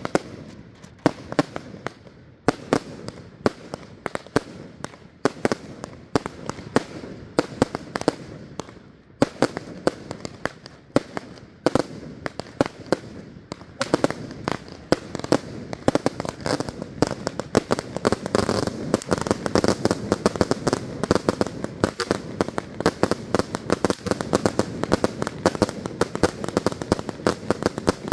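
Fireworks going off: a quick run of sharp bangs and cracks that grows denser about halfway through, turning into near-continuous crackling with bangs over it.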